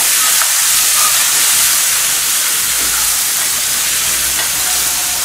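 Water-soaked potato sticks sizzling loudly in hot oil in a frying pan as they are stirred with a wooden spatula: a steady, bright hiss.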